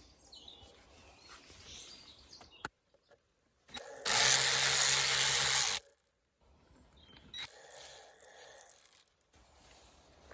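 A cordless power driver runs in two bursts of about two seconds each, undoing the Torx bolts on the air filter box, with quieter handling noises before and between them.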